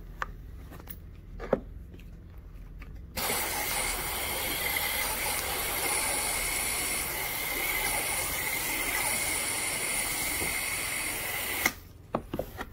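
Carpet pre-spray sprayer hissing steadily as pre-treatment solution is sprayed onto the carpet. It starts abruptly about three seconds in and cuts off sharply near the end.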